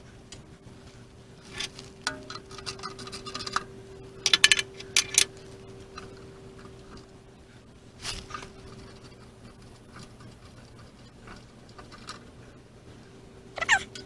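Hand tools working bolts and a metal cover on a sawmill: scattered metallic clicks and clinks, a quick cluster of sharp clacks about four to five seconds in, and a short squeak near the end, over a steady low hum.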